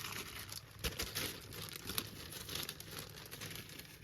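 A new paper vacuum cleaner bag being handled and turned over, its paper crinkling and rustling with many small crackles.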